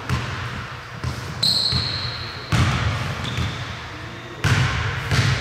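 Basketball bouncing on a gym floor during a game: a handful of irregular thuds one to two seconds apart, echoing in the hall, with a brief high-pitched squeak about a second and a half in.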